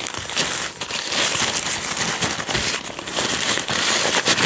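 Plastic film and paper packaging crinkling and rustling as it is handled and pushed aside in a box of produce: a continuous run of crackly rustles.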